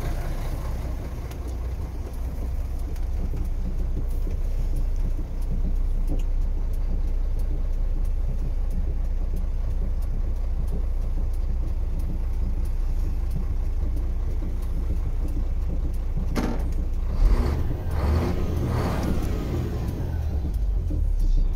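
MAN F2000 truck's six-cylinder diesel engine idling steadily, heard from inside the cab, with a few brief knocks about three-quarters of the way through.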